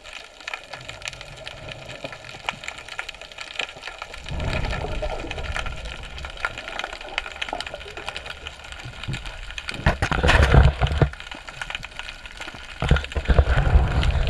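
Underwater sound picked up by the camera: a constant crackle of small clicks, with three bursts of low rushing water noise as the camera moves through the water.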